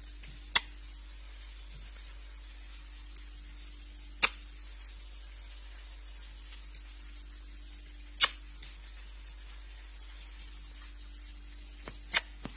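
Four sharp clicks, about four seconds apart, over a steady low hum.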